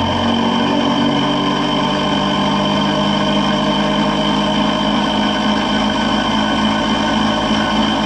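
Electric motor driving a 3D-printed PLA spur gear train at high speed: a loud, steady mechanical whine made up of several steady tones, the strongest high and piercing.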